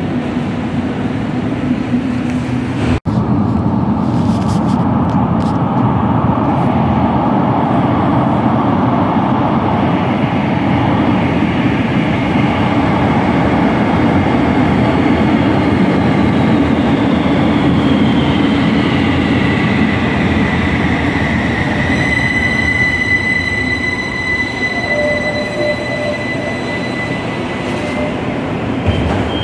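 Algiers Metro train pulling into an underground station: a steady rumble that grows as it approaches, then a high whine that falls in pitch as it slows and settles into a steady high whine near the end as it comes alongside the platform.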